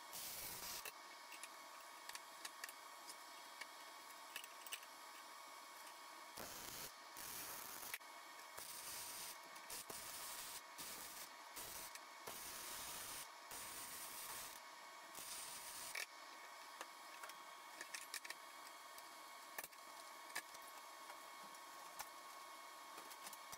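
Arc welding on small steel parts, heard as several short, irregular bursts of hiss through the first two-thirds; after that only faint clicks and taps remain.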